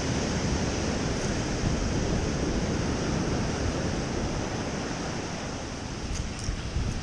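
Ocean surf washing on a sandy beach, a steady rushing wash, with wind buffeting the microphone.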